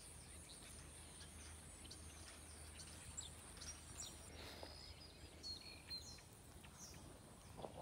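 Very quiet outdoor ambience with small birds chirping now and then in short, high calls. A steady high-pitched hiss stops about halfway through.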